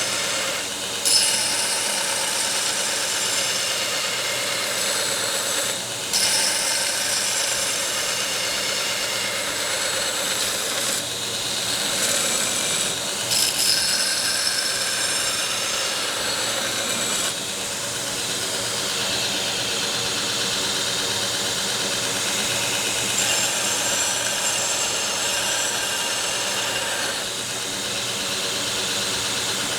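Belt grinder running with a coarse 36-grit belt while a forged steel knife blank is ground against it, a steady motor hum under a grinding hiss. The hiss changes and dips briefly several times as the blade is lifted and pressed back on.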